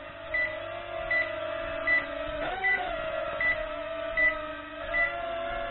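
Holy Stone HS220 mini quadcopter hovering, its small motors and propellers giving a steady whine, while its low-battery alarm beeps about once every three-quarters of a second, a sign the battery is nearly spent. The motor pitch briefly wavers about halfway through.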